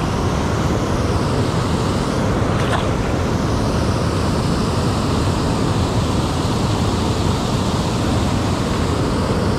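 Steady rush of river water spilling over a low dam close by, a constant, even noise with no change in level.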